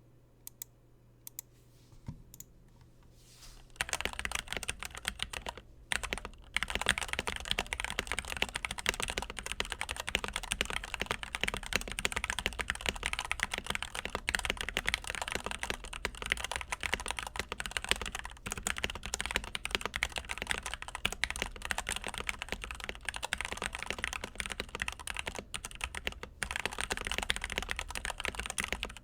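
Fast typing on a custom mechanical keyboard with stock, unlubricated Gateron Yellow linear switches. A few separate key presses come first, then about four seconds in a rapid, steady clatter of keystrokes, with a short break near six seconds. The keys sound tinny and hollow.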